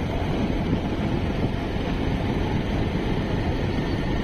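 Steady wind rushing over the microphone of a moving two-wheeler, over a low rumble of engine and road noise.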